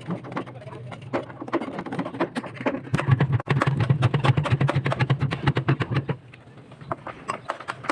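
Knocking and clattering of formwork shuttering being stripped on a building site, many sharp knocks in quick succession over a steady low machine hum that is loudest from about three to six seconds in.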